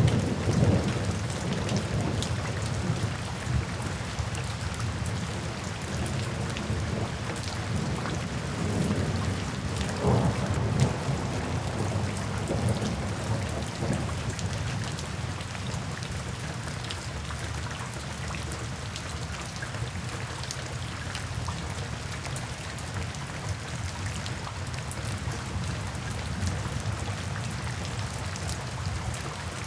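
Steady rain falling, with low rolls of thunder: one dying away in the first second or so and another about ten seconds in, then rain alone.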